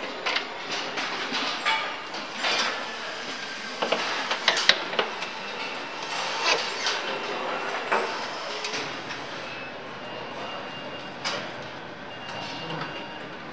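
Car assembly-line machinery and tools: a steady mechanical hum with frequent sharp clanks and clicks, busiest in the first half. About nine seconds in it settles to a steadier hum with only the odd knock.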